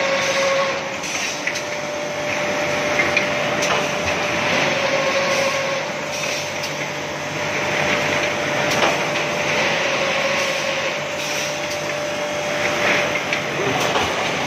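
Convolute paper tube machine running: a steady mechanical whir with a constant mid-pitched whine, scattered with a few sharp clicks.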